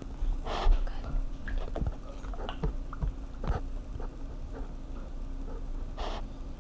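Hands squeezing and stretching sticky slime: soft wet squelches a few seconds apart, with small clicks and pops between them.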